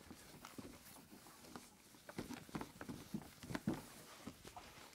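Faint rubbing of a microfiber towel wiping a wet-sanded plastic headlight lens: a string of soft, short strokes, busier in the middle.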